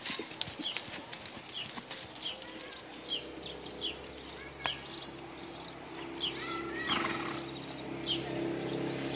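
Horses' hooves trotting on sand in a round pen, the beats thickest in the first couple of seconds, while small birds chirp over and over. A steady low hum builds in the second half.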